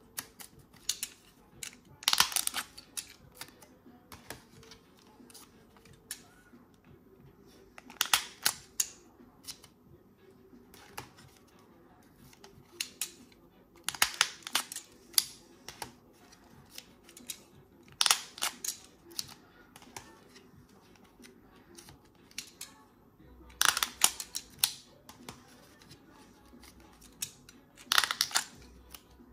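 3.5-inch floppy disks being cut and pried apart with a utility knife, their plastic shells and metal shutters giving short bursts of sharp cracking and scraping. The bursts come six times, a few seconds apart.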